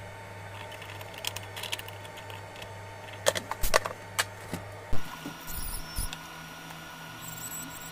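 Hand tools and small brass model parts handled on a workbench: scattered light clicks, then a few sharp metal knocks as tools are set down. Faint high squeaks follow near the end.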